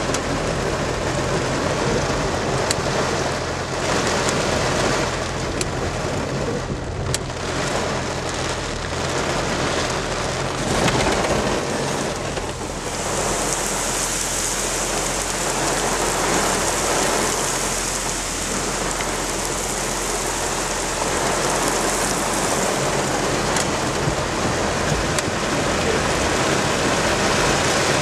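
Cloudburst: heavy rain pouring down in strong gusting wind, a steady loud rush with a few sharp ticks in the first several seconds. About halfway through, the downpour turns heavier and the hiss grows higher and stronger.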